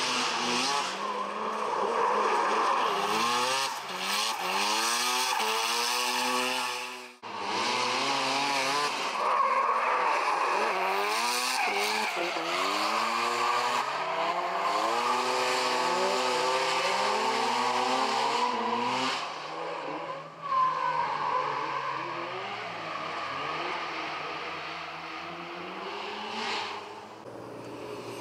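Mazda RX-7 FD's rotary engine revving up and down repeatedly while the car drifts, with tyre squeal. The sound breaks off briefly about seven seconds in.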